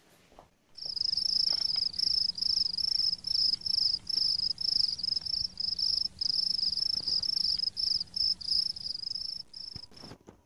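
Crickets chirping in a steady high trill that pulses about three times a second, starting abruptly about a second in and cutting off just before the end: the stock crickets effect for an awkward silence.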